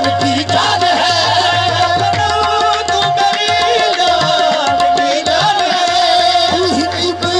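Live qawwali music: harmonium melody over a tabla rhythm, with one note held for several seconds in the middle.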